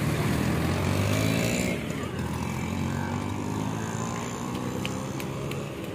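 Street traffic noise, with a motor vehicle's engine running close by.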